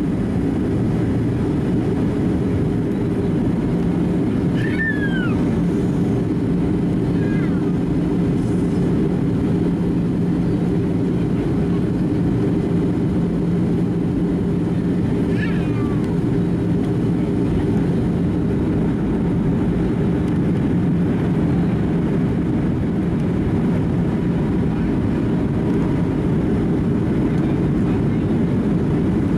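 Steady in-cabin noise of a Boeing 737-700 in descent, heard from a window seat by the wing: the CFM56-7B engines and the airflow over the fuselage, an even rush with a low steady hum. Twice, about five and fifteen seconds in, a short high voice sound falls in pitch above it.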